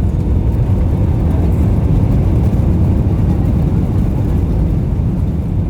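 Steady low rumble of an Airbus A320's engines and airframe heard from inside the passenger cabin during the landing, easing slightly near the end.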